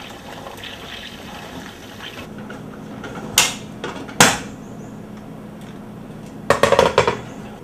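Metal clanks of a stainless-steel stovetop pressure cooker being handled and its lid worked open: two sharp knocks about three and a half and four seconds in, then a quick rattle of several clanks near the end. A low steady hum starts about two seconds in.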